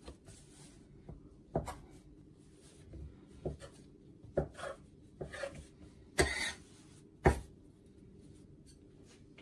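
Knife cutting soft yeast dough into pieces on a countertop, the blade knocking sharply on the counter about five times, with soft rubbing and handling of the dough between the knocks.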